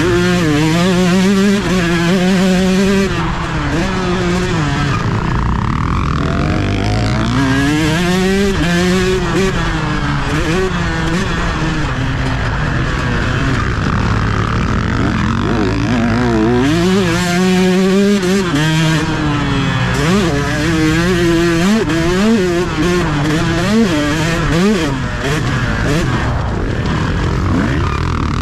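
Two-stroke motocross bike's engine at race pace, revving hard and backing off again and again, its pitch climbing and dropping every second or two, heard close from the rider's helmet.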